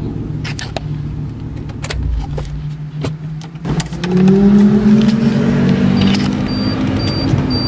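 A Volvo's engine running as it is parked, with scattered clicks and handling noises; about four seconds in the engine note gets louder. Near the end a short, high electronic beep repeats about four times.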